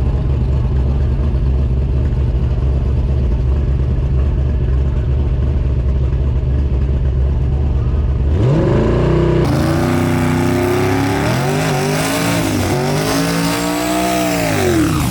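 Race car engine running at a steady low rumble, then about eight seconds in its pitch climbs sharply and rises and falls as it revs and accelerates, dropping away near the end.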